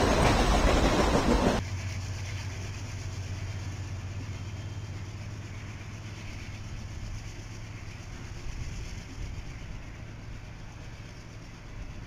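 Loud rushing noise that cuts off abruptly about a second and a half in, followed by a steady low rumble from a train.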